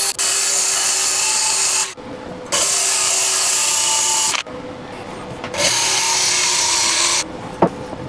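Cordless drill spinning a Sharppog's grinding discs against a multitool blade, grinding deep new teeth into it. It grinds in three steady stretches of about two seconds each, with the drill's motor still whining in the short breaks between them.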